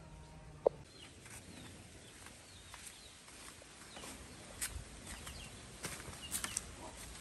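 Footsteps on dry leaves and soil in the open, with faint bird chirps behind. A single sharp click comes just under a second in.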